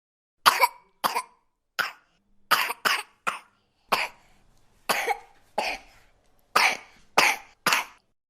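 A baby coughing: about a dozen short coughs with brief gaps, some coming in quick pairs.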